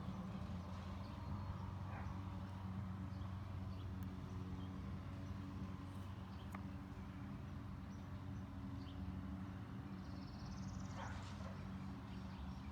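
A steady low mechanical hum, with a few faint short high chirps and ticks over it.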